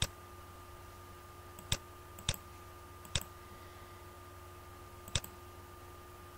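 Computer mouse button clicked five times at irregular intervals, sharp single clicks, over a faint steady electrical hum with a thin tone.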